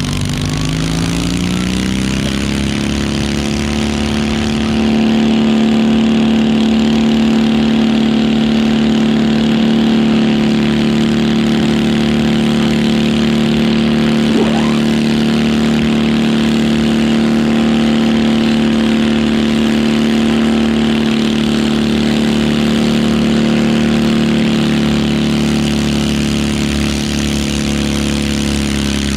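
Stock garden tractor's engine under full load pulling a weighted sled: it revs up over the first couple of seconds, grows louder about five seconds in, then holds a steady high-throttle note.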